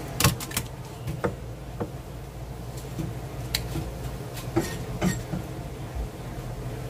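A whole olive flounder slapping wetly onto a plastic cutting board as it is flipped over, the loudest knock about a quarter of a second in, followed by scattered light taps and knocks of the fish and a knife on the board, over a steady low hum.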